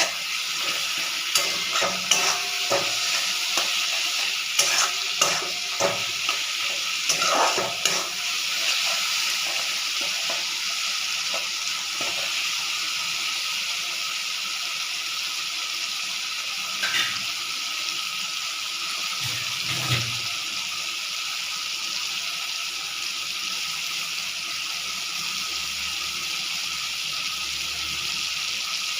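Food frying in oil in a pan with a steady sizzle, while a spatula stirs and scrapes, clicking against the pan through the first dozen seconds or so; after that mostly the sizzle alone, with a couple of knocks.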